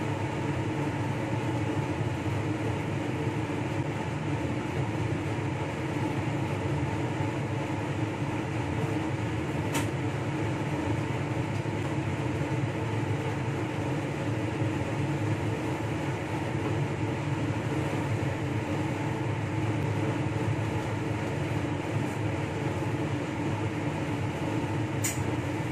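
Steady hum and rush of air from a blower fan running without change. A faint click about ten seconds in and another near the end.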